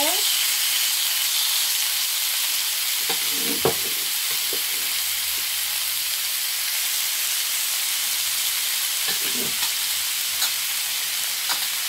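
Marinated chicken breast fillets sizzling in olive oil on a hot grill pan at medium heat, a steady hiss. A few light clicks come as more fillets are laid in with tongs.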